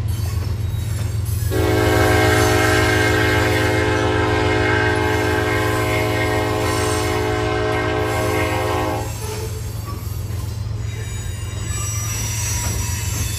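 Diesel freight locomotive's air horn sounding one long chord of several notes, held for about seven and a half seconds, over the steady deep rumble of the passing train. A faint high wheel squeal follows near the end.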